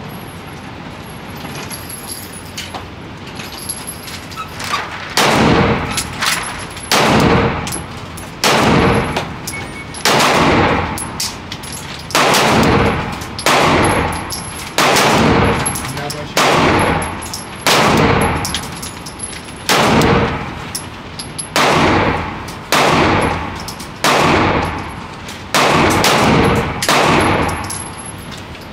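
Gunshots at a shooting range, fired singly at a steady pace of about one a second, starting a few seconds in. Each shot has a short echoing tail.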